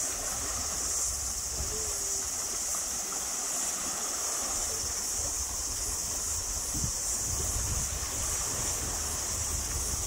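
Dense, steady chorus of cicadas, a shrill high band that holds unbroken throughout, over a low rumble of wind on the microphone.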